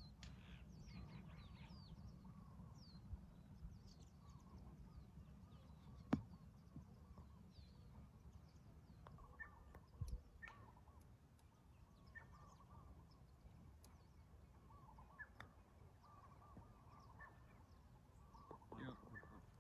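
Near silence with faint bird chirps and warbling calls over a low steady rumble, and a sharp click about six seconds in and another about ten seconds in.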